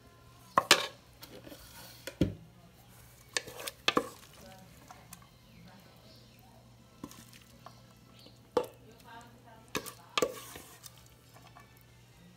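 A wooden spoon scooping filling from an aluminium pot and spreading it over batter in a foil tray. A handful of sharp knocks and clinks of the spoon against the pot and tray are scattered through, with soft scraping between them.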